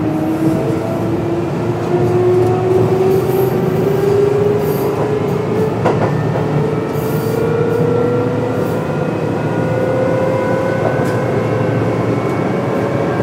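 Kintetsu 8600 series electric train running: the whine of its traction motors and gears rises slowly in pitch as it gathers speed, over a steady rumble of wheels on rail. A single sharp knock comes about halfway through.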